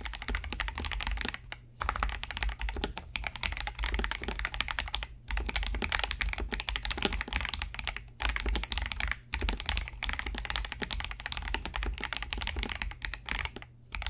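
Mechanical keyboard fitted with Akko Starfish linear switches being typed on quickly: a dense run of clacky keystrokes broken by a few short pauses.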